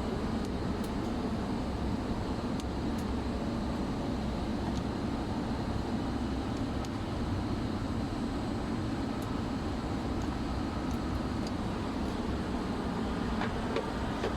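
Steady machinery noise, a low hum under a constant rushing sound, with a few faint clicks from handling parts.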